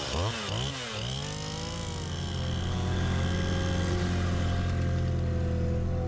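A handheld petrol cutter revving up and down several times while clearing gorse. About a second in, it gives way to the steady running of a machine's engine powering a hydraulic boom-arm cutter on a gorse bank.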